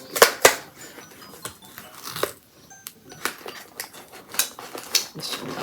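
Snack-cake packaging being opened and handled: an irregular run of sharp crackles and clicks.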